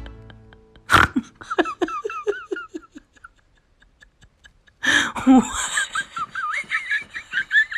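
A person laughing in two bouts. The first starts with a sharp burst about a second in and breaks into short falling pulses; the second starts near five seconds in with a higher, wavering pitch.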